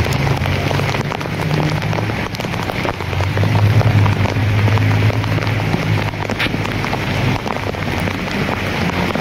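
Heavy downpour pelting the street, a dense steady hiss with fine crackling drops, over a steady low hum of vehicle engines.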